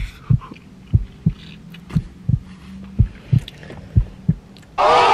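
Heartbeat sound effect, a steady double beat about once a second over a low hum. Near the end a loud burst of a group of people shouting cuts in suddenly.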